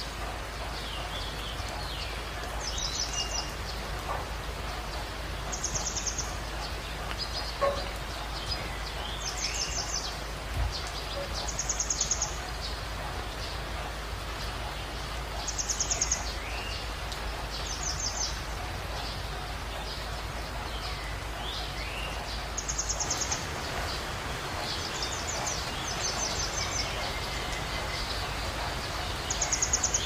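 Steady rain with several birds singing: one repeats a short, high, rapid trill every two to four seconds, with other chirps and whistles in between.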